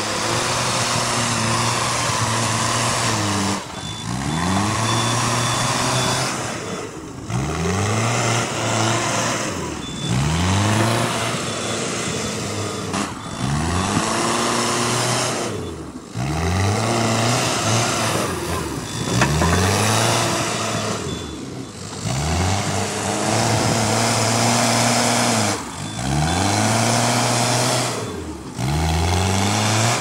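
Mahindra backhoe loader's diesel engine revving up under load and dropping back again and again, about every three seconds, as it pushes soil and shuttles back and forth. A short high reversing-alarm beep sounds now and then.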